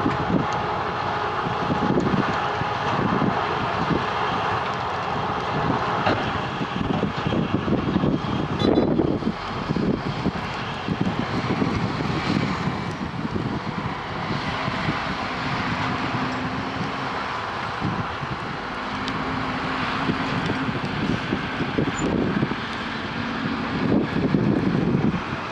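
Heavy diesel machinery running steadily at a road milling site: the Wirtgen W210i cold milling machine working, with uneven low rumbling that swells louder around a third of the way in and again near the end.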